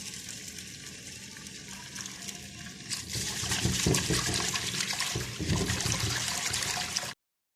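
Tap water running as lentils are rinsed, a steady rush that grows louder about three seconds in and cuts off abruptly near the end.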